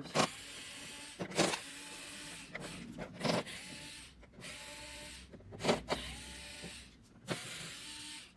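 Cordless drill-driver backing screws out of a TV's back cover: the motor whirs in several short runs of about a second each, with sharp clicks and knocks between the runs.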